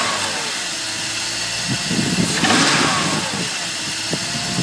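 BMW E46 330Ci's straight-six engine running, with the revs rising and falling once about two seconds in and a rattling tap from the engine as the revs come up. This cold-engine rattle has been put down by two garages to piston slap and by two others to the VANOS.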